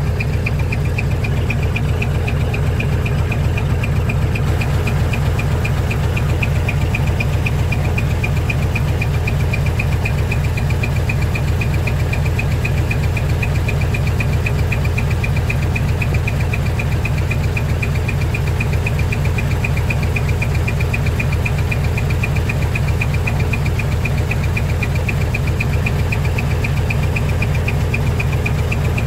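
Decorated truck's diesel engine idling through a manifold-split (mani-wari) exhaust, a steady, rapid, even pulsing beat.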